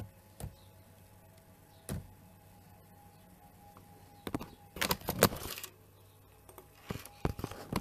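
Handling noise from a smartphone being picked up and moved: scattered taps and knocks on the phone, with longer bouts of scuffing and rubbing against the microphone about five seconds in and again near the end.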